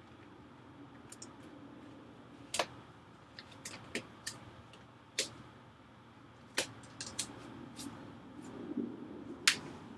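Scattered light clicks and taps, about a dozen, from iMac plastic parts and masking tape being handled during disassembly.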